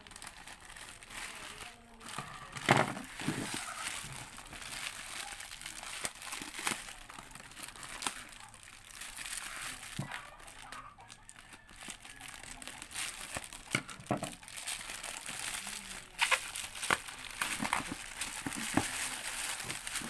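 Thin plastic courier pouch crinkling and rustling as it is cut open with scissors and pulled apart, with scattered sharp crackles of the plastic.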